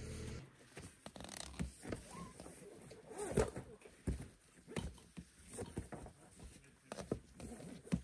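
Irregular rustling, scraping and knocks from handling the tent fabric and heater duct hose, with a couple of louder thumps near the middle. A steady low machine hum cuts off about half a second in.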